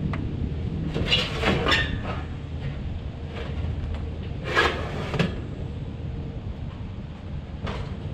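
Sheet-metal clanks and scrapes as the blower assembly is worked loose inside a rooftop HVAC unit's blower compartment: a cluster about a second in, a louder clank near the middle and a few lighter knocks after, over a steady low rumble.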